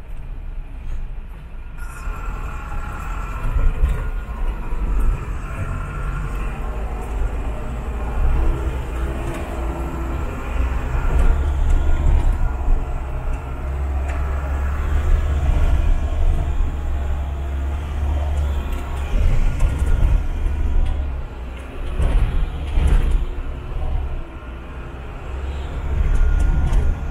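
A bus jolting along a very bumpy dirt road: a heavy low rumble of engine and road noise that swells and eases, with knocks and rattles from the bodywork over the bumps.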